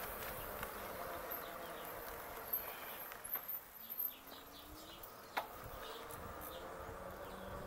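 Summer insects buzzing and trilling, with a thin high shrilling in the first half and a few sharp clicks.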